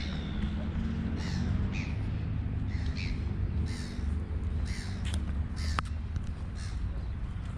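A bird giving repeated short, harsh cawing calls, about one a second, over a steady low rumble.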